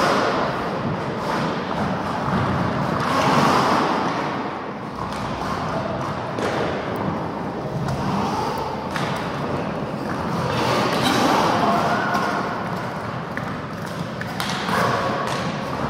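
Roller hockey play: skate wheels rolling on the rink floor under a run of sharp knocks and thuds from sticks, ball and boards.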